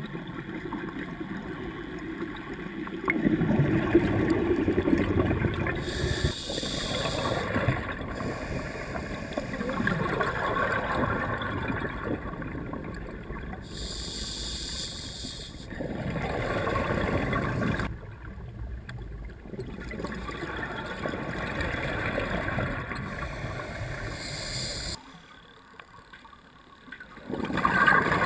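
A scuba diver's regulator breathing underwater: hissing inhalations every several seconds, alternating with gurgling exhaled bubbles.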